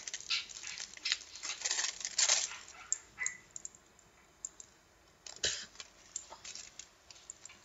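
Aluminium foil being crumpled and crinkled in the hands: dense crackling for about the first three seconds, then only a few scattered crinkles.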